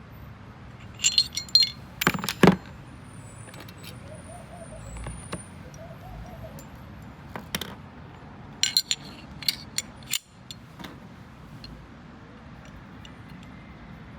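Metal parts of a Smith & Wesson 9mm pistol clicking and clacking as it is handled and field-stripped: a quick cluster of sharp clicks about two seconds in, and another run of clicks past the middle.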